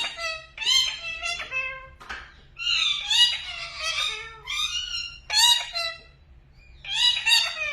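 Pet parrot calling in a string of short, shrill, squeaky calls that bend up and down in pitch, with a brief pause about six seconds in.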